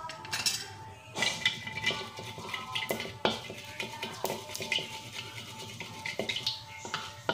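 Wooden spatula stirring mustard seeds in a little hot oil in a wok, scraping and tapping against the pan with irregular sharp clicks.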